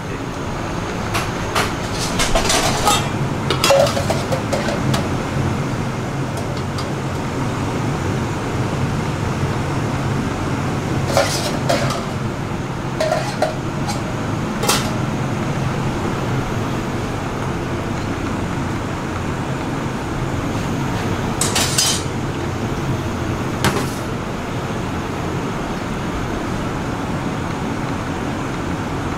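Scattered clinks and knocks of plates, utensils and metal containers on a stainless-steel counter, in short clusters, over the steady hum of a kitchen extractor.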